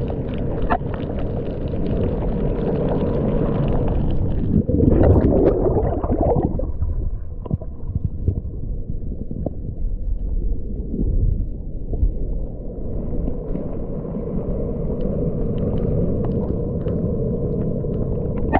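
Muffled low rumble and gurgling of water heard through a camera held underwater, with a few faint clicks. A swell comes about five seconds in, and the higher hiss drops away for several seconds in the middle before returning.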